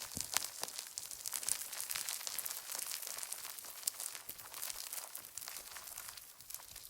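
Slime being played with, giving a dense run of small crackling pops and clicks.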